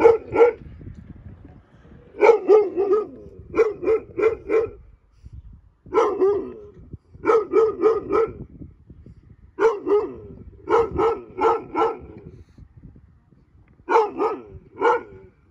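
Dog barking in short volleys of two to four barks, about eight volleys with brief pauses between.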